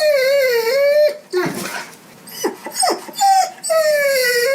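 Dog whining: a long wavering whine, a short sniffing breath, a few brief yips, then a second long whine that slides slowly down in pitch near the end.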